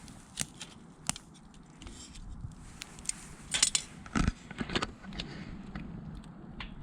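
Bonfire crackling: scattered sharp, irregular pops, with a louder burst of clicks and a low thump about four seconds in.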